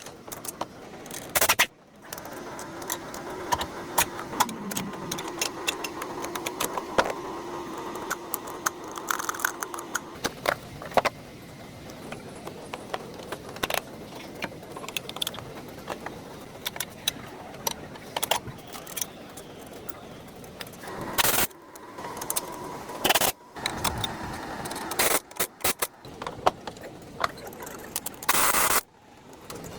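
Metal hand tools and car parts clinking, clattering and scraping, with many sharp clicks and a few louder bangs, as a car's front CV axle is worked on.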